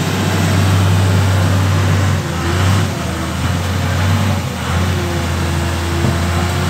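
Wheel loader's diesel engine running close by, a steady low drone that dips and rises again a couple of times. A faint thin whine joins about five seconds in.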